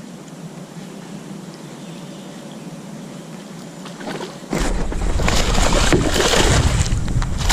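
Quiet water and breeze background from a fishing kayak, then about four and a half seconds in a sudden much louder rush of noise with water sloshing and splashing and scattered knocks against the kayak.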